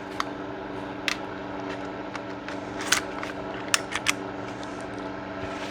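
Small sharp metallic clicks and taps of a Ruger EC9s pistol's parts being handled and fitted back together, about six in all, several close together around the middle. Under them runs a steady hum from a space heater.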